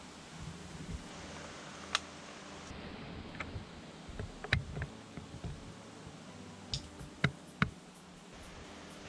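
Scattered sharp single clicks and snaps from an airsoft game, about six in all, with two loud ones close together near the end, over faint rustling of gear.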